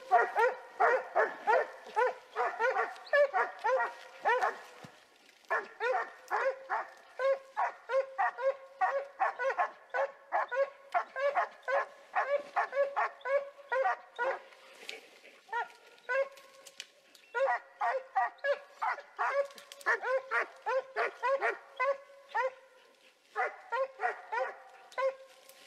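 Hunting dog barking steadily into cover, about three barks a second with a few short breaks: a dog baying at a wild boar holed up in the thicket.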